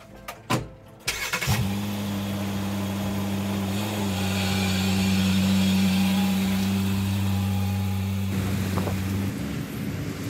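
A few sharp clicks, then a Jeep Cherokee XJ engine starts about one and a half seconds in and idles with a steady, even hum that shifts near the end.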